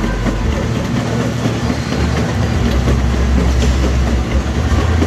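Treadmill running belt rumbling and clattering under fast, rapid footfalls of a person sprinting at full speed.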